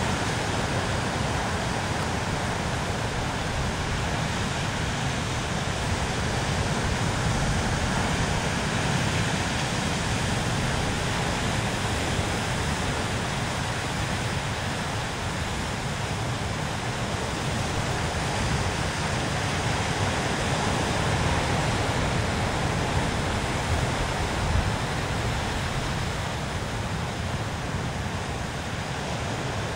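Sea surf breaking and washing over shore rocks: a steady rush of water noise with a deep rumble beneath it.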